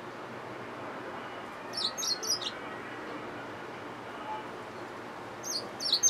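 Yellow-fronted canary mule, a canary hybrid finch, giving two short bursts of high, quick chirping song, about two seconds in and again near the end, over a steady faint hiss.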